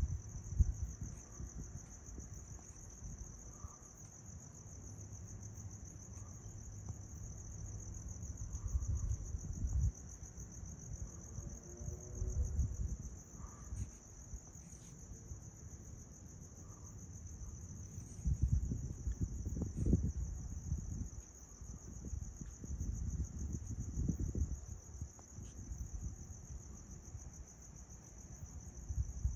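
Crickets trilling in an unbroken, high, finely pulsing chorus. Low rumbles of wind buffeting the microphone come and go over it, loudest around two-thirds of the way through.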